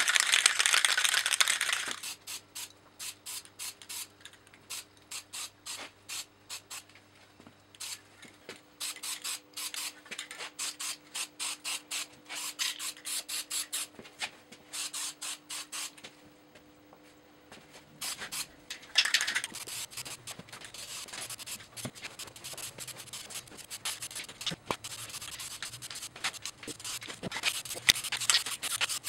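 Aerosol spray-paint can hissing in bursts: a loud burst in the first two seconds and more hissing later on, with a long stretch of quick, even clicks in between.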